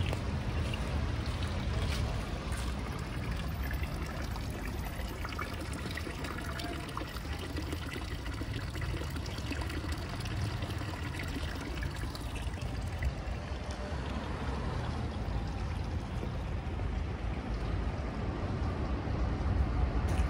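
Steady rush of running water over a low rumble.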